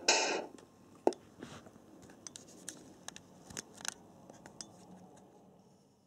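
A model truck's sound unit plays through its small speaker and stops within the first half second, then scattered small clicks and light scratching of handling that fade away near the end.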